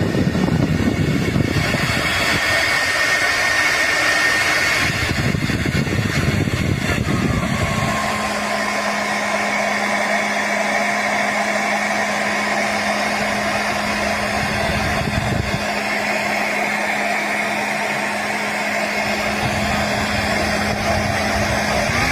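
Handheld 1800 W ionic hair dryer running: a steady rush of blown air with a motor whine. About seven seconds in the tone of the whine changes, then holds steady.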